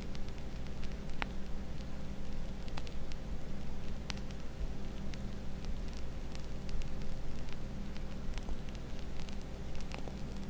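Mascarpone cream being squeezed from a plastic piping bag onto a sponge cake layer: soft squishing and scattered small crackles, over a steady low hum.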